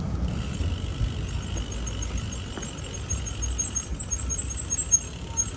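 Street sound from a moving bicycle: a steady low rumble of tyres and wind on the microphone, with a rapid, evenly spaced high ticking that starts about a second in.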